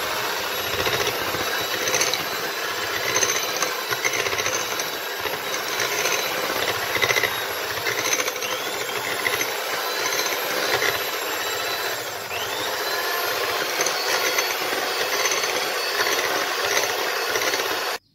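Ottimo electric hand mixer running steadily, its beaters whisking eggs, sugar and oil in a glass bowl until the batter is pale and foamy. It cuts off abruptly near the end.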